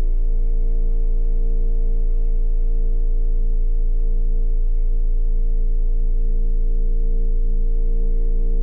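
Sustained low drone of a horror film score: a very deep steady bass with several held tones above it, unchanging throughout.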